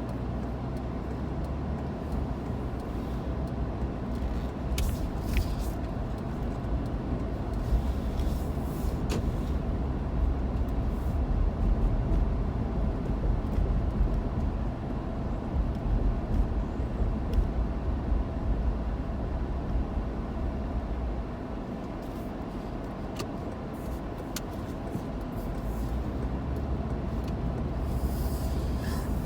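Steady low rumble of a road vehicle in motion, with a few brief clicks and rattles.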